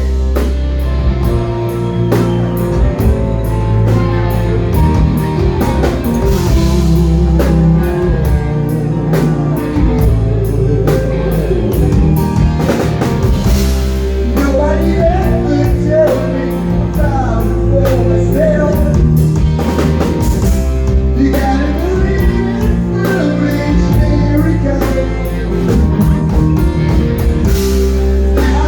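Live rock band playing loud with drum kit, electric guitar and bass under a singing lead vocal, a steady driving beat.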